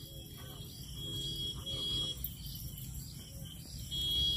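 Faint insect chirping: a thin high tone that comes and goes, twice, over quiet background noise.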